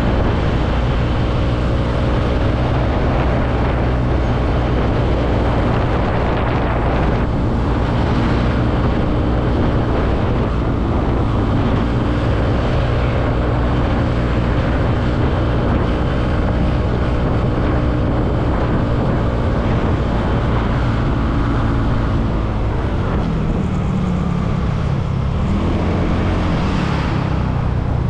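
Motorbike engine running steadily while riding along, mixed with road noise; the engine note shifts a little near the end.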